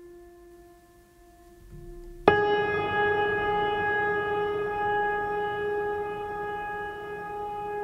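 Background instrumental music: a soft held tone, then a louder sustained chord that starts sharply about two seconds in and rings on steadily.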